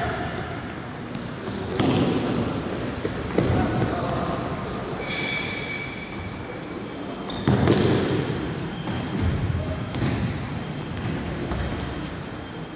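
Futsal ball being kicked and bouncing on a wooden gym floor, four sharp thuds echoing through the hall, with short high squeaks of players' shoes on the floor in between.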